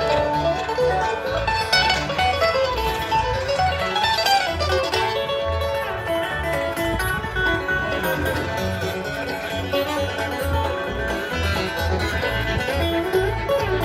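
Bluegrass band playing an instrumental break live over an outdoor PA, banjo and guitar picking over a steady bass beat, heard from far back in the crowd.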